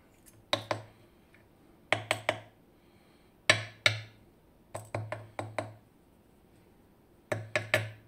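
Small metal parts of a DOM IX Twido lock cylinder and steel tools clicking and tapping against each other and a wooden pin tray while the lock is taken apart. The clicks come in five short clusters of two to four sharp taps.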